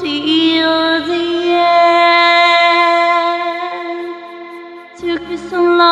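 A woman singing one long held note without words over a backing track; the note fades about four seconds in and the accompaniment comes back in about a second later.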